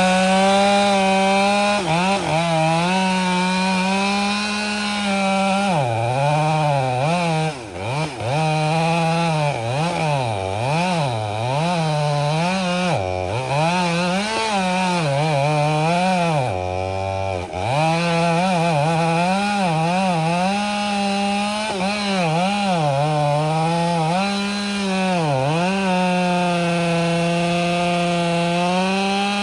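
Husqvarna two-stroke chainsaw cutting wood at full throttle. Through the middle the throttle is eased off and opened again over and over, and about 17 seconds in it drops briefly to idle before winding back up to a steady full-throttle cut near the end.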